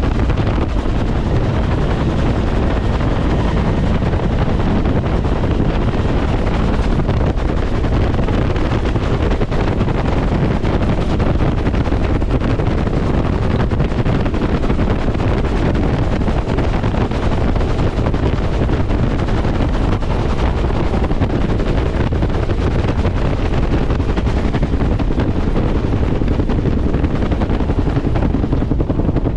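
Bell UH-1 Huey helicopter in flight, heard from inside the cabin: a loud, steady drone of the rotor and turbine engine, with wind buffeting the microphone.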